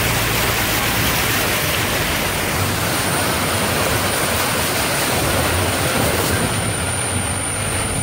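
A vehicle driving through a shallow stream: a steady rush of water splashing up against the wheels, with a low engine rumble underneath.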